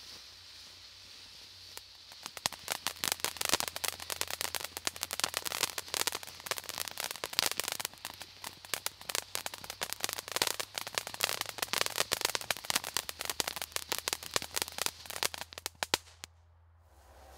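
Helix ground fountain firework burning: a steady hiss at first, then from about two seconds in a dense, fast crackling of crackle stars for roughly fourteen seconds, which stops abruptly near the end.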